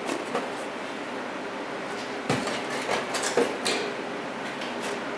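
A few short knocks and clatters, bunched between about two and four seconds in, over a steady background hum.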